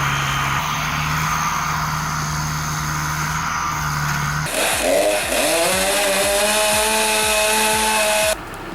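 A chainsaw running. About four and a half seconds in it revs up sharply and holds a high, steady whine, after a steadier, lower engine hum.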